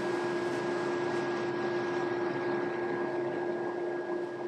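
Wire-brushing machine running with its dust extraction: a steady machine noise with a held hum, easing off slightly near the end.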